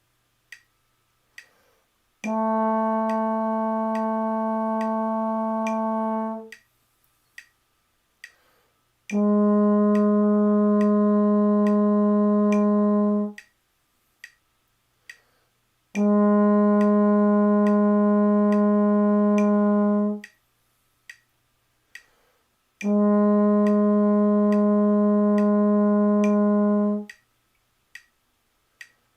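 Trombone playing four long, even whole notes of about four seconds each, with a metronome clicking steadily at 70 beats a minute between and under them. The first note is B flat; the next three drop a half step to A natural.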